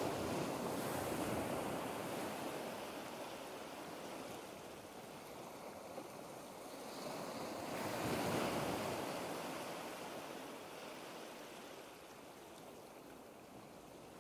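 Sea waves washing: a steady rush of surf that swells near the start and again, louder, about eight seconds in, then fades away.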